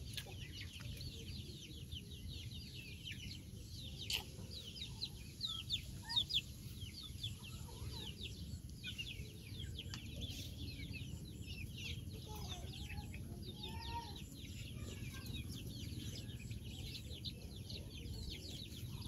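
Chickens chirping and peeping: a busy stream of short, high, falling chirps, with a few louder ones around four to six seconds in.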